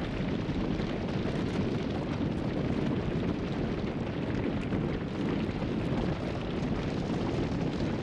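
Herd of reindeer running over snow: many hooves making a steady rumble, with faint scattered clicks.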